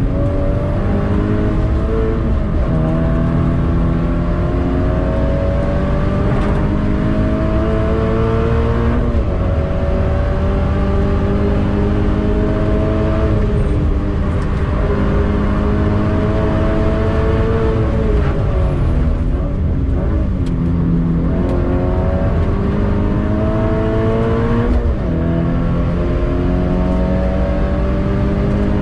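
Toyota GT86's stock 2.0-litre flat-four engine, heard from inside the cabin through a Tomei titanium cat-back exhaust, pulling hard on track. Its pitch climbs steadily under full throttle and drops sharply several times at gear changes and braking, over a steady rumble of road and tyre noise.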